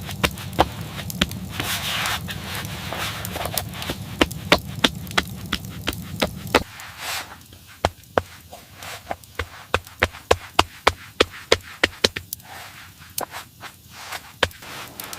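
A series of sharp knocks or chopping strokes, coming faster and more regularly in the second half at about two to three a second. Under the first half runs a low steady rumble that cuts off suddenly about halfway through.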